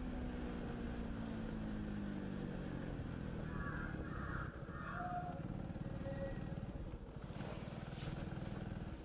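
Motorcycle engine running while the bike is ridden, its note easing down over the first few seconds.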